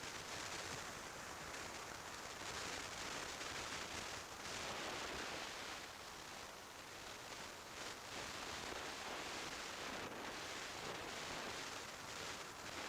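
Steady rushing wind noise on a motorcycle-mounted camera's microphone while riding at speed, gently swelling and easing, with no distinct engine note standing out.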